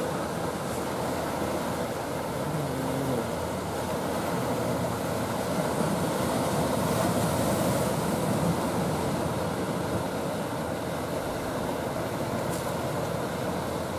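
Steady rumble of a wooden fishing boat's engine running as the boat motors along, over the noise of choppy water.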